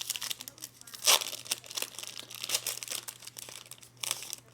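Crinkling and rustling of a foil trading-card pack wrapper and cards being handled, with a loud crinkle about a second in and another near the end.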